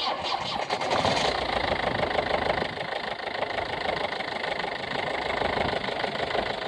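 2015 Ford C-Max TDCi diesel engine idling with a rapid knocking, tapping sound, brighter for the first second or so and then settling; the owner cannot place the cause.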